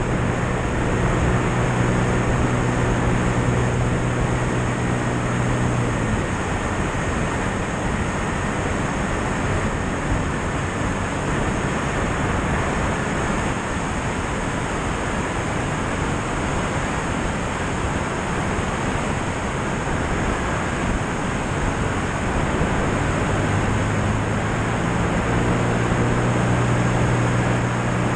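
Steady rush of airflow over a wing-mounted camera on a single-engine piston plane in flight. The low drone of the engine and propeller is heard for the first six seconds or so, fades under the wind, and comes back a few seconds before the end.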